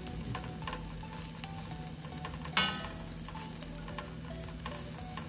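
Melted butter sizzling in a stainless steel frying pan as a buttered shawarma wrap toasts, with the light dabbing of a pastry brush. One sharp tap about two and a half seconds in.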